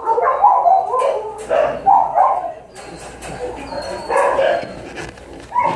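Dog barking: a quick run of short barks in the first two seconds or so, and another group about four seconds in, with a few sharp clicks between them.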